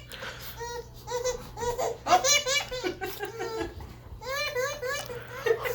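Young child laughing and giggling in several bursts, with some babbling.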